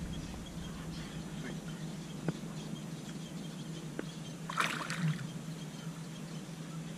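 Water splashing briefly about halfway through as a hooked fish is played at the surface beside a small boat, over a steady low hum, with a couple of faint knocks before it.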